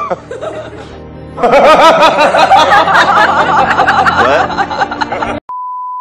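A man's loud, wavering cackle of laughter over music, cut off about five and a half seconds in by a steady high-pitched beep.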